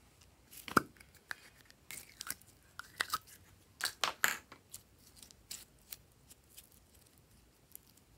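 A sharp pop about a second in as a plastic capsule slime container is opened, then glossy slime squeezed and stretched by hand, giving a run of short crackles and pops, thickest between about two and four and a half seconds in and thinning out toward the end.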